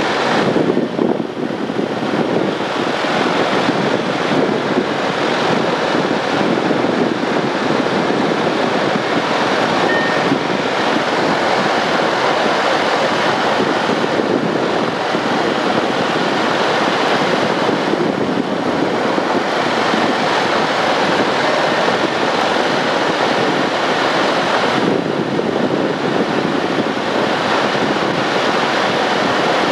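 Piper Cherokee Six single-engine piston engine and propeller running at taxi power, a steady drone heard from inside the cabin.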